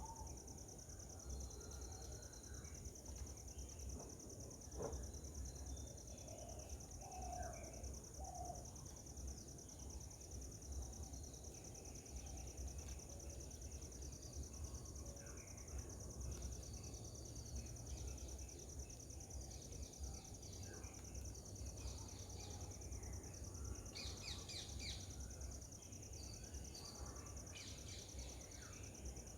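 Steady high drone of insects, with scattered short bird chirps and calls, which come thickest about three-quarters of the way through. Low rumble runs under it.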